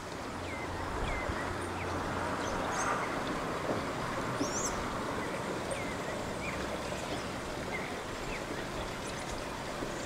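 Steady rushing background noise with scattered short, high chirps and whistles from several wild birds, and a low hum in the first few seconds.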